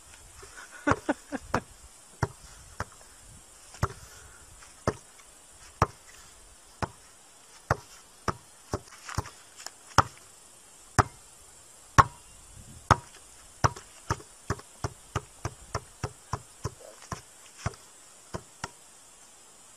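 A long run of sharp knocks, spaced irregularly at first and coming faster, about three a second, in the second half.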